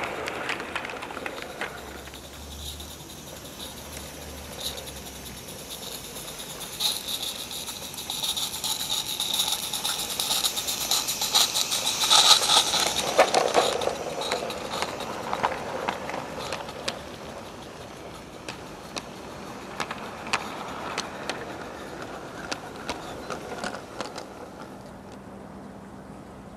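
G-scale garden railway freight wagons rolling past on the track: a rushing hiss full of quick clicks from the wheels over the rail joints. It swells to its loudest about halfway through as the wagons pass close, then fades.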